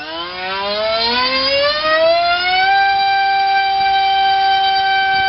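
Turnigy SK3 HeliDrive 2839 2700 kV brushless motor spinning a TGS 6x4 propeller on a 3-cell battery during a thrust test. Its high whine rises in pitch as it spools up over the first two and a half seconds or so, then holds steady.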